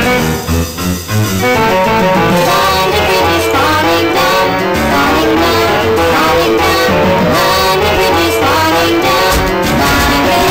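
Loud instrumental background music, a continuous run of short notes, with a brief dip in loudness about half a second to a second in.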